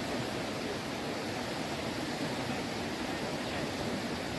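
Steady rushing of fast river water pouring over a standing wave used for river surfing.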